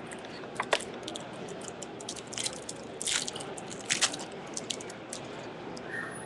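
Trading cards being handled and flipped through: a run of short, crisp flicks and rustles at an uneven pace, the loudest about three and four seconds in.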